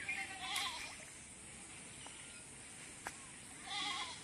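A goat bleating in short, wavering calls: one about half a second in and another near the end.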